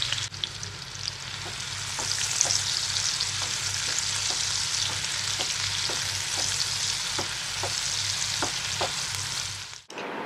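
Sliced onions sizzling in hot mustard oil and ghee in a nonstick pan, frying until pink, with light taps of a silicone spatula stirring them about twice a second. The sizzle cuts off suddenly near the end.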